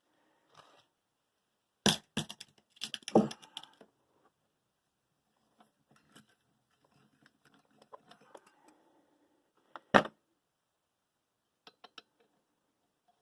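Scattered sharp knocks and clatters of small hard objects being handled: a burst of clatter about two seconds in, quieter handling noise later, and one loud single knock near the end.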